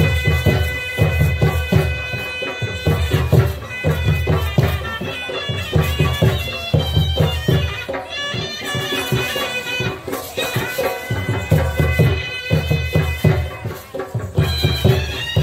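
Chhau dance music: a double-reed pipe of the shehnai kind plays a sustained, ornamented melody over heavy drumming in repeated clusters of beats.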